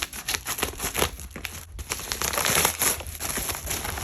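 Packaging being opened by hand: irregular crinkling and rustling, loudest about two and a half seconds in.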